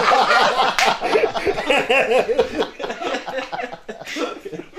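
Several men laughing heartily together in short repeated bursts, the laughter dying down near the end.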